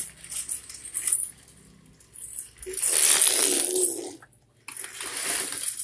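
Light clicking and rattling from a plastic baby walker and its tray toys as a baby handles them, with a louder noisy stretch about three seconds in.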